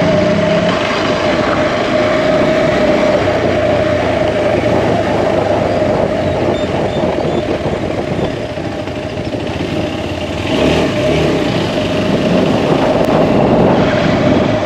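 Motorcycle engine running while riding, with steady wind rush over it; the sound eases off about eight seconds in and builds again a couple of seconds later.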